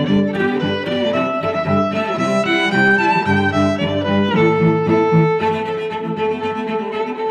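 Background music on bowed string instruments, violin and cello, playing a melody of sustained notes, with one long held note through the second half.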